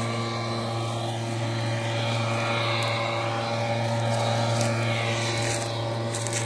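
An engine running steadily at one constant pitch, an even low hum with a stack of overtones.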